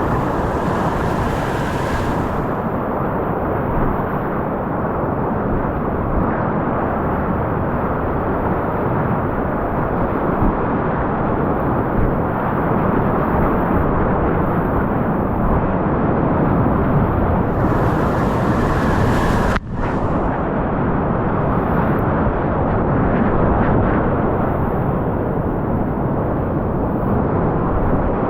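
Steady rush of fast, pushy whitewater rapids, heard muffled, with a brief sharp dip about two-thirds of the way through.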